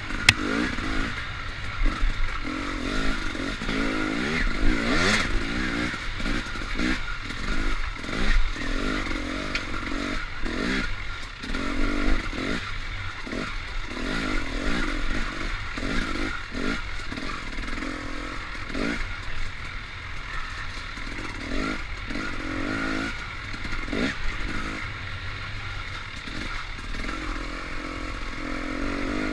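Dirt bike engine revving up and dropping off again and again as the throttle is worked, with the bike rattling and clattering over rough trail and a few sharp knocks.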